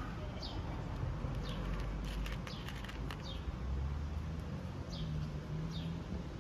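Small birds chirping, short falling calls repeated about once a second, over a low steady rumble. Between about one and a half and three and a half seconds in comes a run of crisp clicks: a kitten crunching dry kibble.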